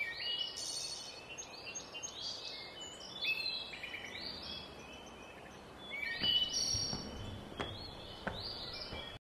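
Several birds chirping and twittering in quick short calls over a faint hiss. The calls are busiest in the first second and again from about six seconds in, with a few faint clicks near the end.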